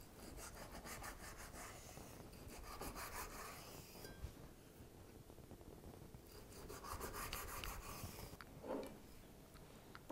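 Kitchen knife sawing back and forth through a piece of salmon on a cutting board, cutting it into steak portions: three runs of quick rasping strokes.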